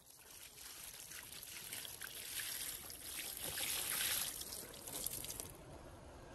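Liquid being poured in a steady trickle, growing louder and then cutting off suddenly near the end.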